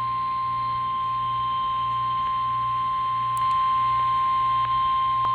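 NOAA Weather Radio 1050 Hz warning alarm tone: a single steady high-pitched beep, the signal that a weather warning is about to be read. A low hum and a couple of faint clicks sit beneath it.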